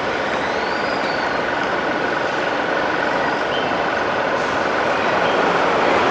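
City street traffic with a heavy vehicle running past: a steady wash of engine and tyre noise, with a faint steady whine through most of it that fades out near the end.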